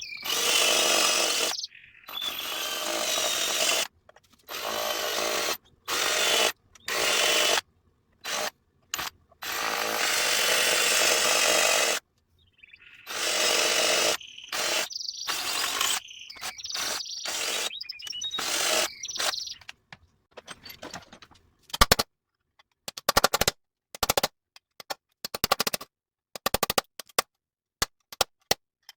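A power tool, running in short bursts and cutting off abruptly, works on metal, as when cleaning rust from old pliers. Near the end it gives way to a rapid series of sharp clicks and taps.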